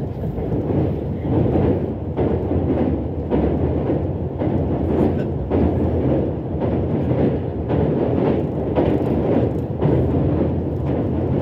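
JR East E353-series limited express heard from inside a passenger car while running at speed: a steady rumble of wheels on rail with a rhythmic beat about once a second, as the train crosses a river bridge.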